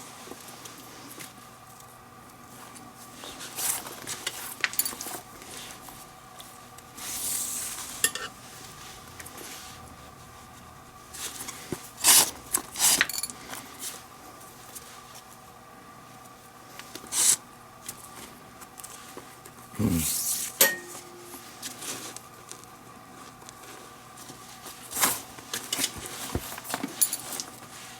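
Leather lace being drawn through the lace holes of a baseball glove during relacing, with brief scraping swishes and scattered sharp clicks and knocks of handling at the work surface.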